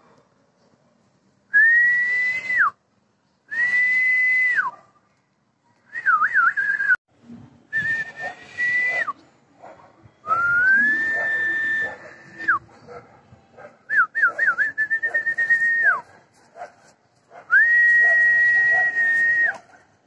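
A series of seven long whistled notes. Each rises to a steady high pitch, holds for a second or two and drops off at the end, and a few open with a quick warble.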